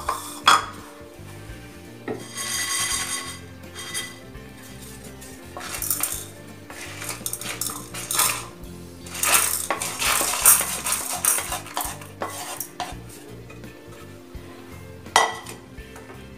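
Roasted dals, coriander seeds and dried red chillies being scraped and tipped out of a non-stick kadai with a wooden spatula into another vessel: spells of scraping and rattling, with sharp knocks of the pan and spatula about half a second in and again near the end.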